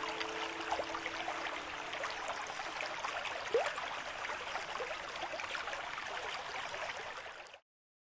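Steady rush of flowing water, like a stream, with small chirps and splashes scattered through it. It fades and cuts off to silence about seven and a half seconds in.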